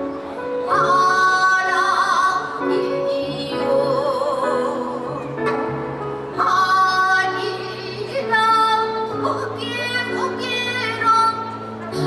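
A woman singing long held notes with vibrato while plucking a gayageum, the Korean zither, over sustained low notes that shift pitch twice.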